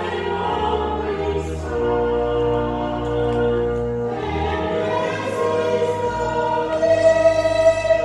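Voices singing a hymn, holding chords that change every second or two over steady low sustained notes, a little louder near the end.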